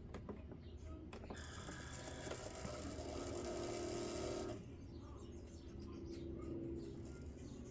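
Keurig K-Iced single-serve coffee maker running: a few clicks, then a steady mechanical hum that cuts off about four and a half seconds in, with a fainter hum near the end.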